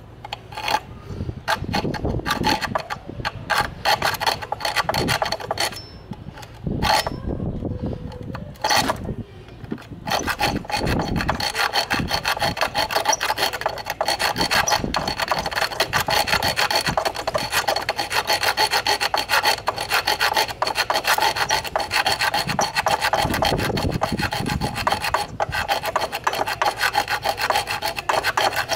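A hand-held hacksaw blade sawing a slot across the head of a five-sided Torx screw on a Toyota idle air control valve, so that a flat screwdriver will fit it. Quick, short rasping strokes, stop-start for about the first ten seconds, then steady and continuous.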